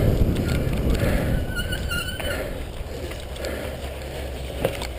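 Riding noise from a camera on a cyclocross bike: wind on the microphone and the rumble and rattle of the bike over rough dirt and leaves, with a sharp knock near the end.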